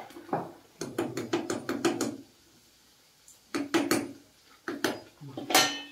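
Metal slotted spoon clinking against an iron kadai: a quick run of about six taps, then a few more spaced taps, the last the loudest.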